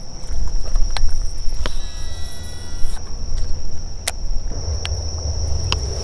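Cicadas singing in a steady high drone, over a low rumble, with a few sharp clicks.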